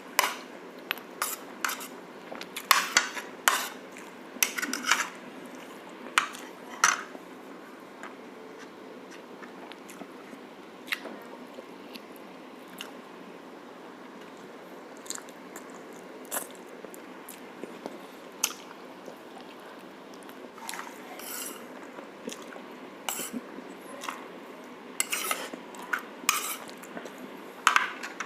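Cutlery clinking and scraping against a plate in clusters of sharp clicks, busiest at the start and again near the end, with a quieter stretch in the middle.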